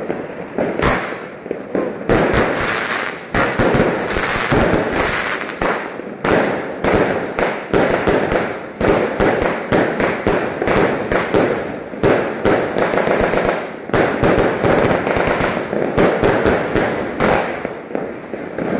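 Aerial fireworks going off in a continuous barrage of bangs and crackling, one burst close on another with no pause.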